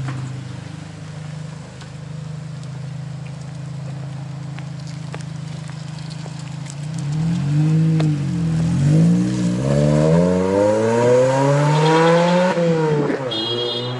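Hyundai Elantra GT's 1.8-litre four-cylinder engine with its muffler removed, idling steadily just after a cold start, loud through the open exhaust. From about seven seconds in it is revved several times, the pitch rising and falling over and over, then drops back toward idle near the end.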